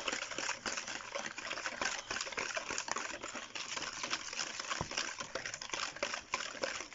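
Wire whisk beating a butter, sugar and egg mixture in a plastic mixing bowl: fast, continuous clicking and scraping of the wires against the bowl.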